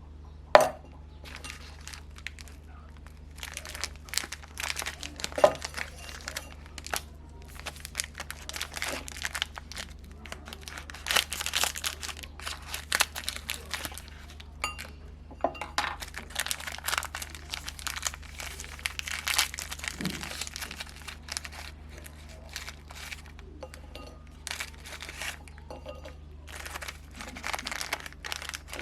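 Oreo cookies being crushed in a meat grinder: dense, irregular crunching and crackling with a few sharper snaps, over a steady low hum.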